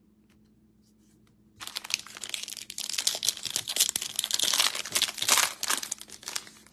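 A foil trading-card pack being torn open by hand, its wrapper crinkling and crackling. It starts about a second and a half in and runs densely for about five seconds.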